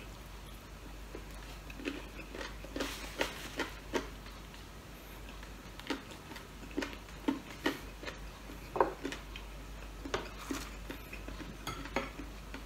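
A person chewing food close to the microphone, with irregular short smacking clicks from the mouth.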